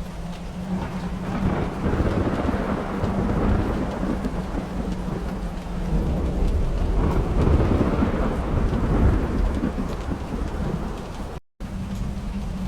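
Rain falling steadily with two long rolls of thunder, each swelling and fading over a few seconds: the first a second or two in, the second around the middle. The sound cuts out for a moment near the end.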